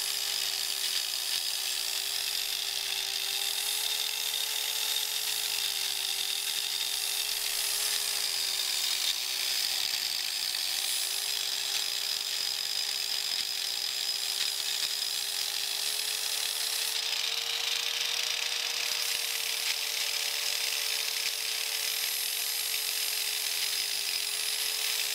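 Drill Master 4-1/2 in. angle grinder running steadily against the go-kart's metal frame, grinding a spot clean to bare metal ready for welding. It makes a steady motor whine that wavers slightly in pitch, with a harsh grinding hiss over it.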